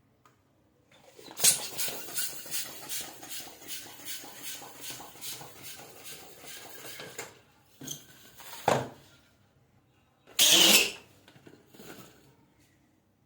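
A balloon being inflated: about six seconds of rushing air noise pulsing about twice a second, then a brief burst and, a couple of seconds later, a louder half-second burst of air noise.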